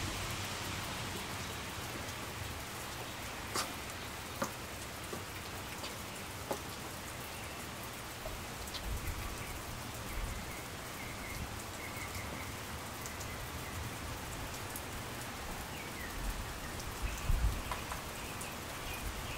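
Steady rain falling, with scattered sharp drip taps now and then. A few soft low thumps about nine seconds in and again near the end.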